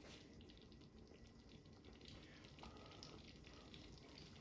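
Faint, sparse popping of thick tomato curry sauce simmering in a large stainless steel pot, bubbles breaking now and then.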